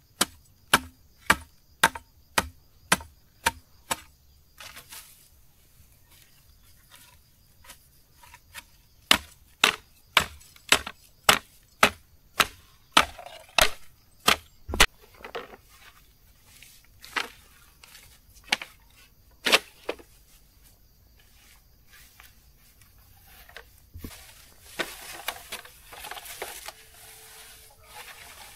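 A blade chopping against wood in quick, even strokes, about two or three a second, in two runs, then a few scattered chops. Near the end comes a few seconds of rustling noise.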